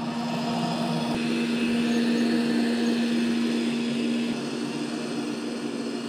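iRobot Roomba Combo j7+ robot vacuum running on carpet with a steady whir, not super loud. A low hum under the whir drops out about four seconds in.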